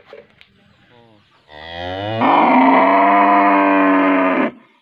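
A cow mooing: one long moo of about three seconds that starts low, jumps up in pitch and loudness partway through, then cuts off suddenly.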